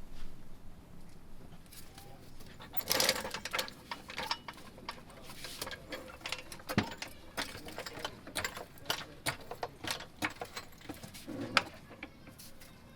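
Hand tools clicking and clanking against metal, irregular sharp knocks with a few louder strikes, while a car's coilover is being worked on.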